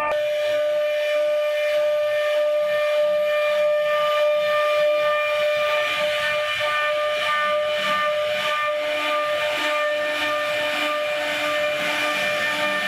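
CNC router spindle whining at one steady pitch while its bit carves grooves into a wooden door panel, over a continuous hiss of cutting.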